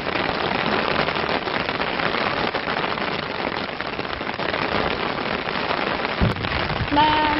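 Heavy rain pouring down steadily, a dense even hiss of drops hitting the wet ground. A voice starts near the end.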